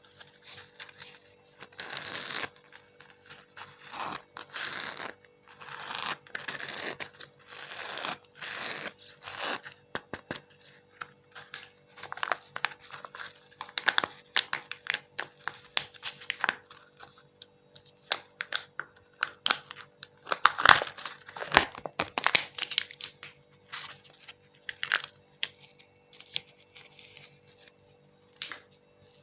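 Candy wrappers being torn open and crinkled, in many irregular bursts of rustling and tearing, over a faint steady hum.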